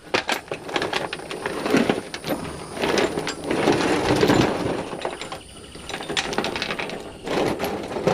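Metal chain rattling and clanking as it is handled and piled up: a dense run of metallic clinks and knocks that eases off for a moment midway.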